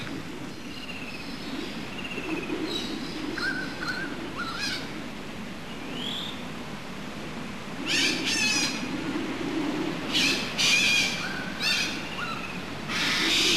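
Wild birds calling: scattered short chirps and whistles, then louder rapid chattering calls from about eight seconds in, over a steady low background noise.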